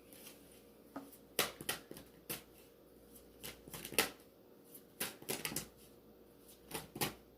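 Tarot cards being shuffled by hand: a string of short, irregular card slaps.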